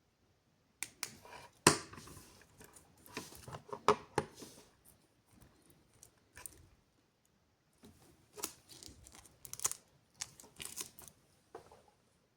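Packaging being handled while unboxing a wristwatch: irregular rustling with sharp clicks, in two bouts with a quieter lull in the middle.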